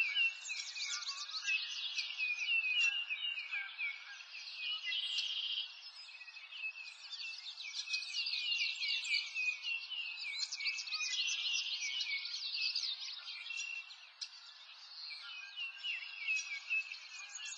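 Many small birds chirping and twittering at once, a busy chorus of short high chirps.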